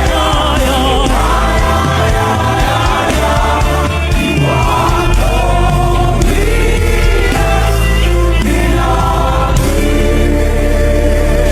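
Many voices singing gospel worship music together, with instrumental backing under them.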